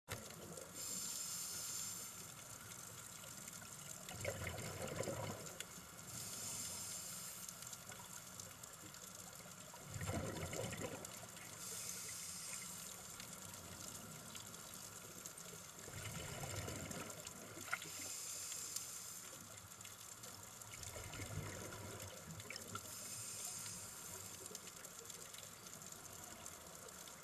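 Scuba diver breathing underwater through a regulator: a hiss on each inhale, then a gurgling rush of exhaled bubbles, in a slow steady cycle of about one breath every six seconds. A faint steady whine runs underneath.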